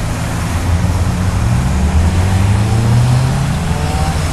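Street traffic: a nearby motor vehicle's engine running, its pitch rising slightly a little past the middle, over a steady rush of road noise.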